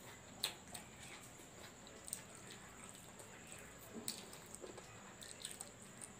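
Close-miked mouth sounds of a person biting and chewing braised pork knuckle: wet smacking with sharp clicks, the loudest about half a second in and others near two and four seconds.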